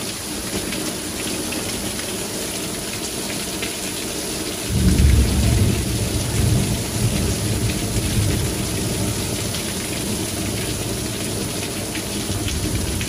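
Heavy thunderstorm downpour hissing steadily on the lawn and pavement. About five seconds in, a clap of thunder breaks in with a low rumble that fades over the next few seconds.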